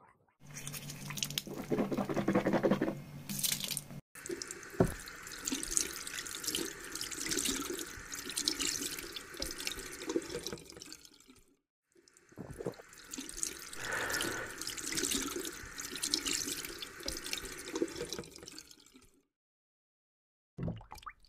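Water sound effect: running, splashing water in long stretches, with a short break about halfway and a stop near the end.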